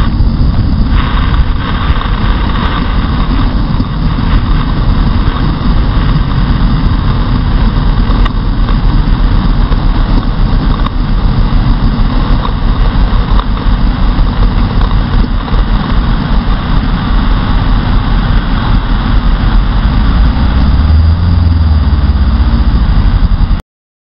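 Loud, steady rush of wind, road and water noise on a helmet-mounted camera as a Kawasaki Ninja 650R rides through a flooded road, water spraying up over the bike, with the engine running beneath it. The sound cuts off suddenly near the end.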